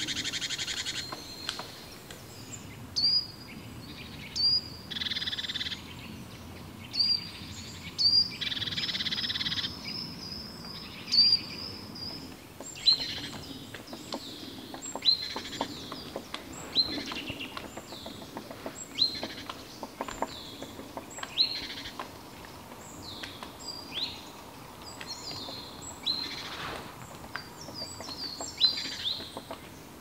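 Woodland birds calling: a string of short, high, sharp notes that slide downward, repeated every second or two, with a few longer rapid trill-like phrases in the first third.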